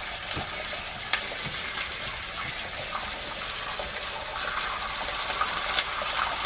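Bacon rashers sizzling in a hot frying pan as a steady hiss with small pops. The sizzle grows a little louder about four seconds in as another rasher goes into the pan.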